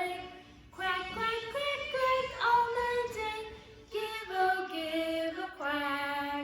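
A woman singing unaccompanied in two phrases of long held notes, with a short break between them.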